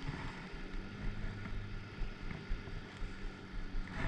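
Wind buffeting the microphone, with irregular low thumps over a faint steady low hum.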